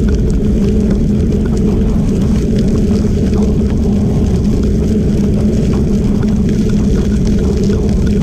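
Steady low rumble of travelling along a gravel trail, mostly wind on the microphone and tyres rolling on gravel, with faint scattered ticks of small stones. The audio runs at double speed, which raises its pitch.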